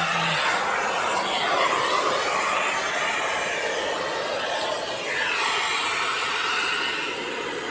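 Steady, loud hiss of pressurised gas rushing from a red hose line laid along a railway rail.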